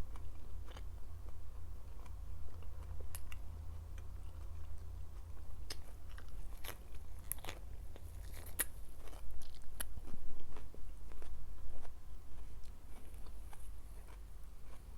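Close-miked eating sounds: biting and chewing, with a run of crisp, wet crunches about halfway through.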